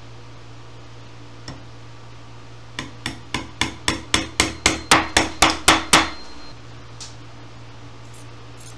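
Upholstery tack hammer driving tacks through jute webbing into an oak chair's seat rail: one light tap, then about a dozen quick strikes at roughly four a second that grow louder, then stop.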